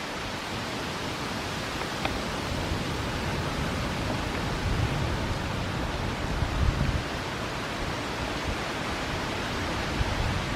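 Steady hiss of outdoor background noise, with a few low rumbles about five and seven seconds in.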